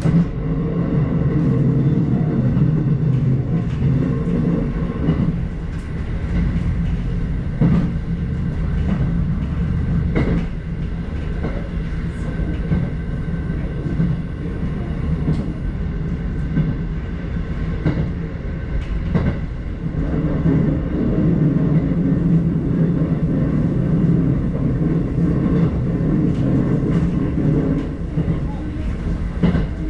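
Electric commuter train running on the Hakodate Main Line, heard from inside the car: a steady rumble of wheels on rail with a low hum that swells and eases. A few sharp clacks as the wheels cross rail joints.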